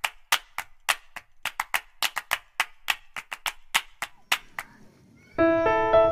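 A rapid, irregular run of sharp clicks, several a second, for about four and a half seconds. After a short pause, piano music begins near the end.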